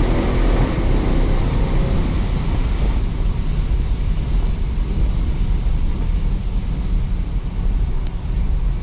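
Mercedes-Benz CLS 63 AMG's twin-turbo V8 running in a tunnel: its engine note fades over the first couple of seconds, leaving a steady low rumble.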